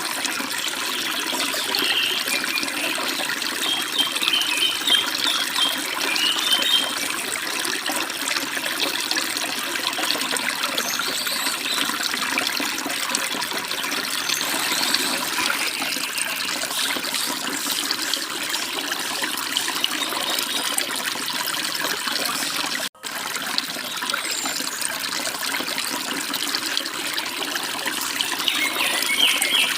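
Forest stream and small waterfalls running steadily over rocks, with short bird chirps in the first few seconds and again near the end. The water cuts out for an instant about three-quarters of the way through.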